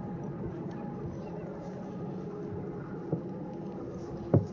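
Steady mechanical running hum with a faint steady tone in it; a small click about three seconds in and a sharp knock near the end.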